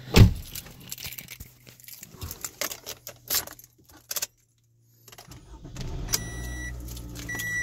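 Car keys jangling and clicking at the steering column of a Toyota, then, after a short gap, the car comes on with a low steady hum and the dashboard warning chime sounds twice, about a second apart.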